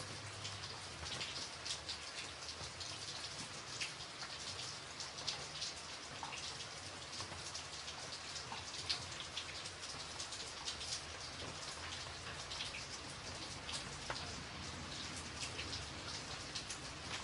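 Steady rain falling, with frequent distinct drop hits standing out above an even hiss.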